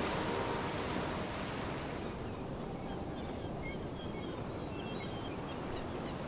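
The last of the background music fades out in the first second, leaving steady surf and wind noise at the seaside. Faint high chirps come and go in the second half.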